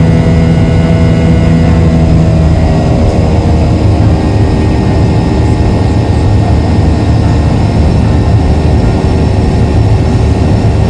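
Boeing 737-800's CFM56 jet engines heard from inside the cabin: a loud, steady roar with a deep hum.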